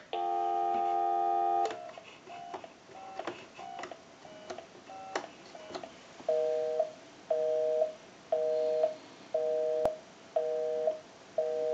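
Telephone line tones played through a test amplifier's speaker: a steady dial tone for under two seconds, then a quick run of short touch-tone beeps as a number is dialed on the telephone's added keypad, then a busy signal beeping about once a second, the sign that the dialed line is engaged.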